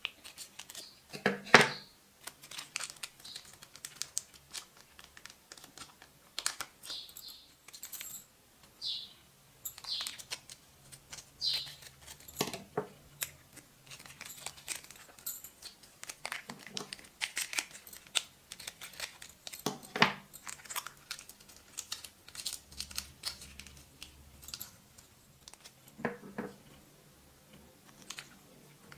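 Plastic shampoo sachets crinkling and rustling in fingers, with a sharp snip of scissors cutting one open about a second and a half in. Scattered irregular crackles and clicks follow as the sachets are handled.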